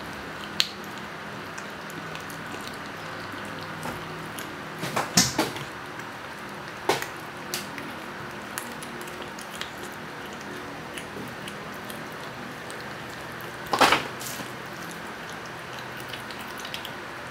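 Cat eating raw chicken off an enamel plate: scattered wet chewing clicks and smacks. The loudest bursts come about five seconds in and again late on, over a steady background hiss.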